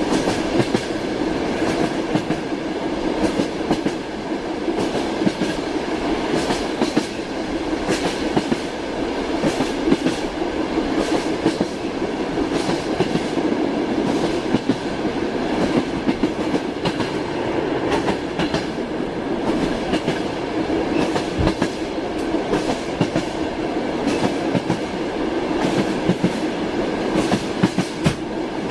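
Train wheels clattering over the rail joints: a steady rumble of a moving train with repeated sharp clicks of the clickety-clack.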